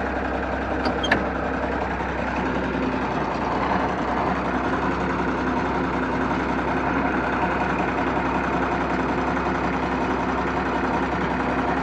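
John Deere 4630's six-cylinder turbo diesel engine running steadily as the tractor pulls away slowly, towing a full water wagon. A light click about a second in.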